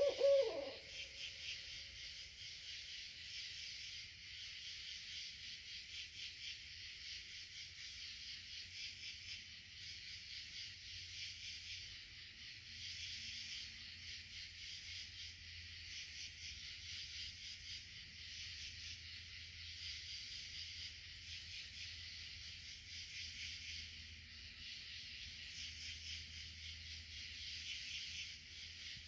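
Evening insect chorus, likely crickets or katydids: a steady, high-pitched pulsing trill that runs on without a break. A brief lower call with a bending pitch, like a hoot, sounds right at the start.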